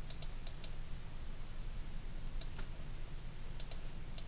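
Light clicking from computer input devices, a few scattered clicks in small clusters, over a steady low hum.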